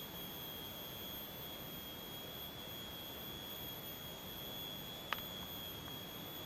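A forest insect's steady high-pitched drone holds one unbroken tone over a faint hiss, with a single short click about five seconds in.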